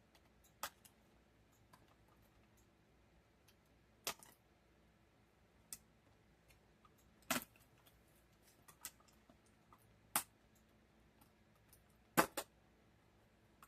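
Scattered sharp clicks and taps of small plastic doll pieces and packaging being handled, about eight of them spaced a second or two apart, with the loudest pair near the end.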